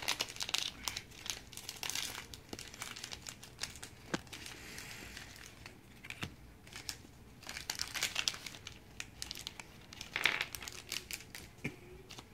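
Dice Masters foil booster pack being torn open and crinkled by hand, a run of irregular crackles.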